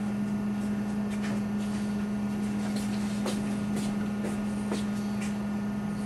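Steady low hum, even throughout, with a few faint soft clicks and rustles.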